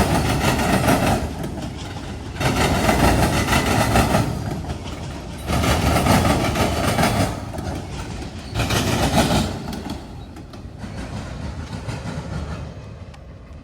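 Freight train auto-rack cars rolling over a rail diamond crossing. The wheels clatter across the crossing gaps in loud bursts about every three seconds, then die down to a fainter rumble near the end as the last cars clear.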